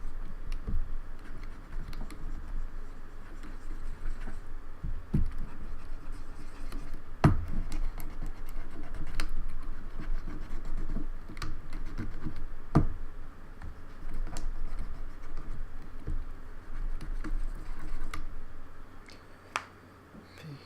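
Cotton swab scrubbing around the keys of a Logitech K360 keyboard, a steady scratchy rubbing, with sharp key clicks every second or two. The keys are being worked loose after being swabbed with isopropyl alcohol to free them from sticking.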